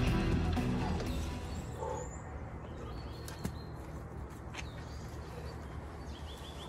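Background music fading out over the first second or so, then quiet outdoor forest ambience with faint bird chirps and a couple of light taps.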